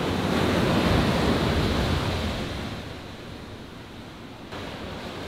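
Ocean surf washing up on a pebbly beach: a swell of wave noise that builds over the first second or so, then fades away over the next two seconds.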